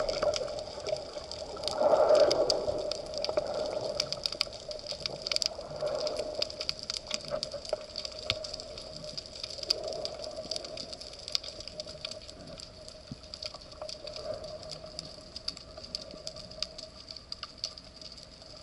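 Underwater ambience: a steady watery hiss scattered with many fine clicks and crackles, and a louder swell of water movement about two seconds in, with smaller ones later.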